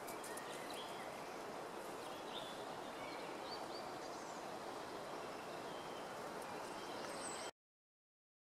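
Steady outdoor background noise with faint, scattered high bird chirps. The sound cuts off suddenly about a second before the end.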